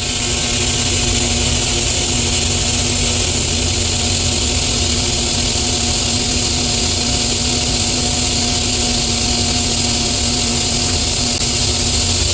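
TIG welding arc burning steadily: an even high hiss over a low hum, unbroken throughout.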